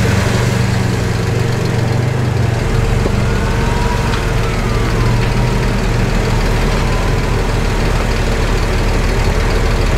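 Off-road 4x4's engine running steadily at low speed on a trail, with a faint gliding tone about three to five seconds in.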